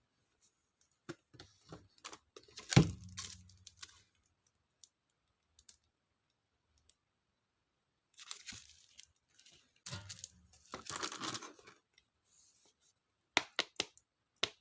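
Stationery packaging being unboxed and handled: paper and plastic rustling and crinkling in short spells, with light taps and clicks. The loudest is a sharp tap with a dull thud about three seconds in.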